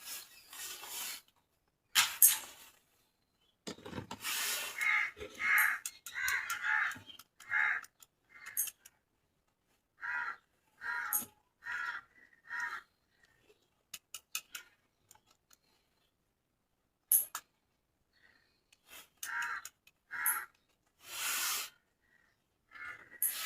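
Toy packaging being handled during unboxing: a series of short rubbing and rustling scrapes, a few sharp clicks, and brief silent pauses between them.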